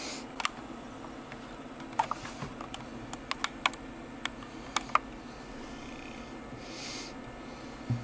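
A run of light clicks and taps from handling at the fly-tying vise, about a dozen over three seconds, then a soft hiss and a dull knock near the end.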